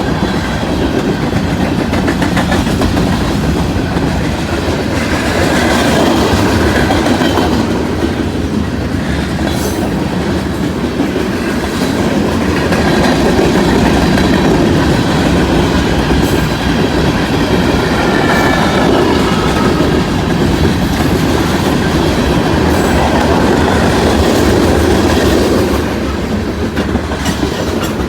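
Union Pacific manifest freight train's cars rolling past at close range: a steady loud rumble, with wheels clattering over the rail joints.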